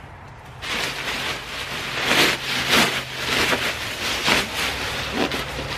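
Black plastic garbage bag full of dry raked leaves crinkling and rustling as it is gripped and lifted, starting about half a second in, in a run of irregular crackling bursts.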